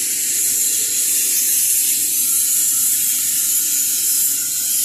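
A loud, steady hiss, mostly high-pitched and even, with no rhythm or pitch to it.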